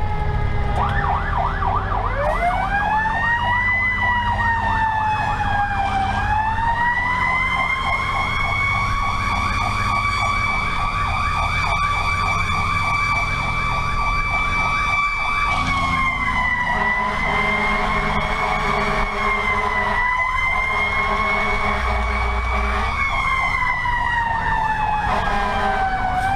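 Fire truck siren wailing, heard from inside the cab over the truck's engine. The tone winds up about two seconds in, holds high for several seconds, then sags and climbs again a few times. A lower steady tone sounds on and off in the second half.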